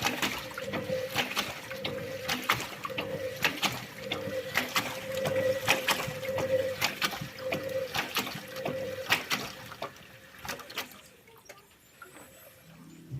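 Thomson washing machine mid-wash: the drum turns the laundry with water sloshing and splashing over the motor's hum. About ten seconds in, the drum stops and the sound drops; near the end the motor starts again.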